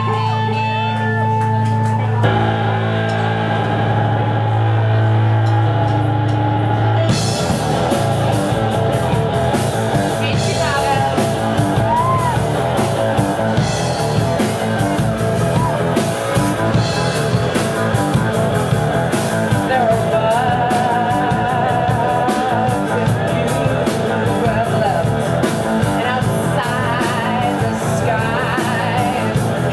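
Live rock band playing: a held low note under a sparse melody, then about seven seconds in the drums and full band come in and play on with vocals.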